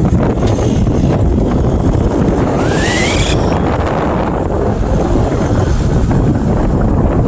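Wind buffeting a phone's microphone from a moving car, a loud, steady rumble. About two and a half seconds in, a brief rising whistle-like tone sounds over it.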